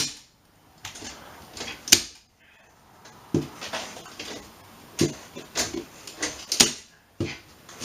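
Several sharp clicks and knocks at irregular intervals, with faint rustling between them.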